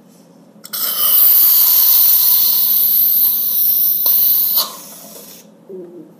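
Aerosol can of whipped cream spraying straight into the mouth in one long hiss of about four seconds, which weakens briefly before it stops.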